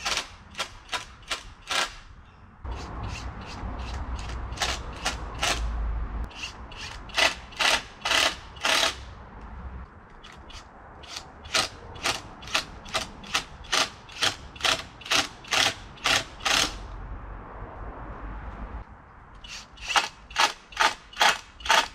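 Cordless impact driver driving screws through plastic water pipe into a wooden batten. It runs in short bursts, about two or three a second, in four runs with short pauses between them.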